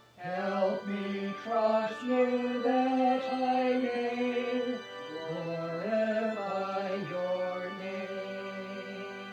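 Hymn music: a slow melody of held notes moving step by step over a sustained low tone, starting a new phrase just after a brief break.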